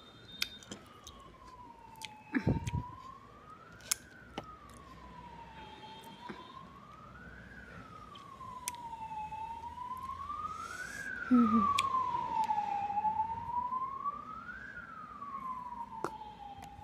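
A wailing siren sweeps slowly up and down in pitch about every three and a half seconds, growing louder toward the middle. Scattered sharp clicks and crunches of dry clay being bitten and chewed sit over it, the loudest about two thirds of the way through.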